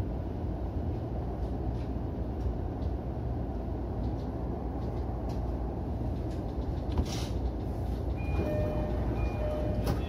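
E231 electric commuter train's steady low running rumble as it slows to a stop, with a short hiss about seven seconds in. Near the end a repeating electronic tone chime sounds: the door-open chime.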